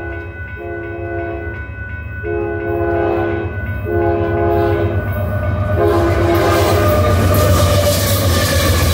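Union Pacific diesel freight locomotive's air horn sounding four blasts of about a second each, its crossing signal as the train approaches the grade crossing. About six seconds in, the locomotives reach the crossing and the engines and rolling wheels grow loud.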